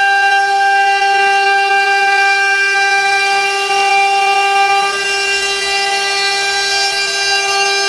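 CNC router spindle running with a steady high whine while its bit mills across a wooden cutting board.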